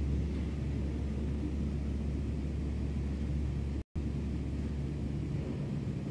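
A steady low rumbling hum, dropping out completely for an instant about four seconds in.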